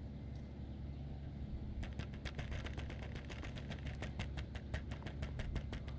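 Spinning reel being cranked to take up line, its handle turning with a quick even clicking of about six ticks a second that starts about two seconds in. A low steady background rumble runs underneath.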